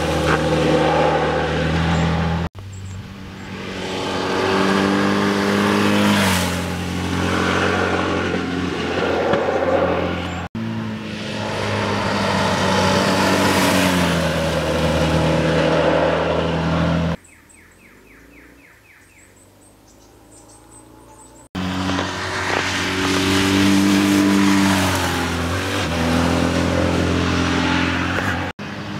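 BMW R1100GS air-cooled flat-twin engine heard from the roadside as the motorcycle is ridden hard through bends: several separate passes, each cut off abruptly, the engine note rising and falling with throttle and gear changes. About two thirds of the way through, the engine drops away for a few seconds and only faint birds chirping are heard.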